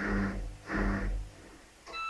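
Gorenje WEI823 washing machine's drum motor turning in short pulses about every 0.7 s with a low hum, stopping a little over a second in, as the spin cycle winds down. Near the end the machine's electronic tone melody begins, marking the end of the programme.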